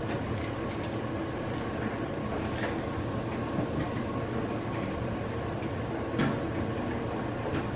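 French Bulldog puppies, nearly seven weeks old, playing: faint scuffling and snuffling with a few small clicks and taps, over a steady background hum. One slightly louder tap comes about six seconds in.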